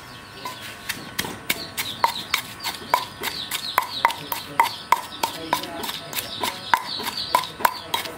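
Wooden pestle pounding a yellow paste in a stone mortar, about three steady strikes a second. Each strike gives a short stony knock that starts about half a second in.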